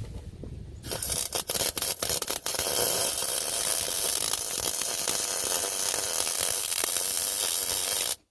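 Wire-feed (MIG) welder arc crackling and hissing: a few stuttering starts about a second in, then a steady weld that cuts off abruptly just before the end.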